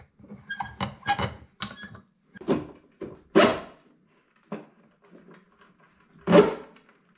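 Light metal clicks and clinks as a steel axle rod is freed from a small bench vise and handled, then the rod worked through a plastic lawnmower deck. Three short, loud sounds stand out, about two and a half, three and a half and six seconds in.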